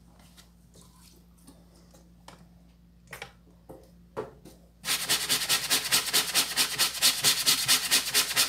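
Stiff plastic scrub brush scrubbing a wet, detergent-soaked shirt in fast back-and-forth strokes, about six a second, starting a little over halfway through. Before that, only faint clicks and rustles of the fabric being handled.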